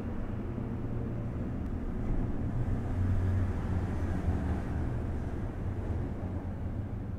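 Steady low rumbling background noise with no speech.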